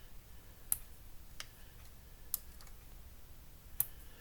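Four light, sharp clicks at irregular spacing, from small scrapbooking supplies such as a packet of enamel dots being handled and set down on a desk.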